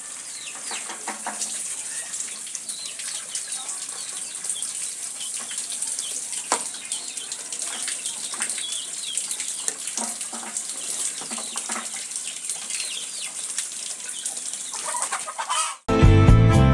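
Water running at a kitchen sink, with scattered clicks and faint bird calls over it. Guitar music starts suddenly near the end.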